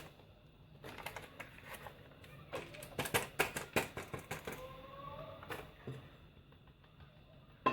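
Kitchen handling sounds while baking powder goes into the flour: a run of quick light taps and clicks, denser about three seconds in, a short squeak about five seconds in, and one sharp knock near the end.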